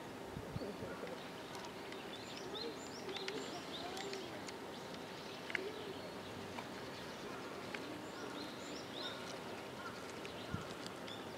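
Small birds chirping in short high calls now and then over steady background noise, with faint distant voices and a few light clicks.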